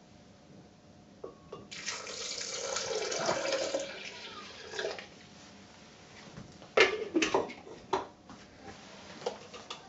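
Salt water poured into a blender jar onto frozen peas, a steady pour of about two seconds that grows louder as it goes. A few sharp knocks follow a few seconds later.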